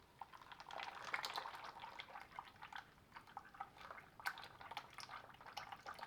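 Old engine oil, thin as water, draining from a Farmall Super C's oil pan into a catch pan: an irregular patter of drips and small splashes that starts shortly in.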